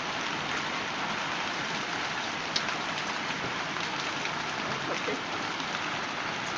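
Hail falling hard, a dense steady pelting patter of hailstones striking surfaces, with one louder single impact a little over two seconds in.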